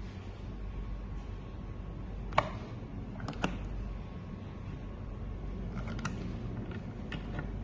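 Several sharp plastic clicks and taps as a USB plug and a small acrylic LED lamp are handled at a portable power station, the loudest about two and a half seconds in, over a low steady hum.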